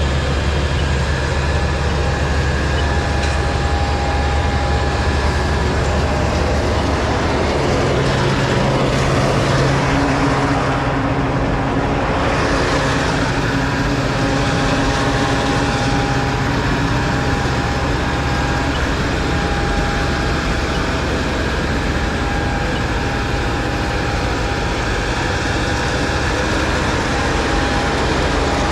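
Fire engine's motor running steadily with a continuous drone; its note steps up about eight seconds in.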